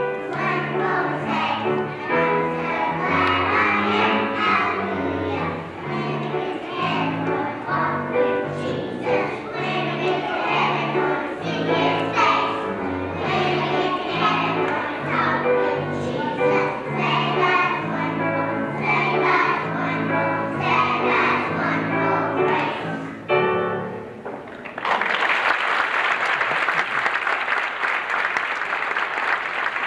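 Young children's choir singing with instrumental accompaniment; the song ends about three-quarters of the way through, and after a brief pause the audience breaks into applause.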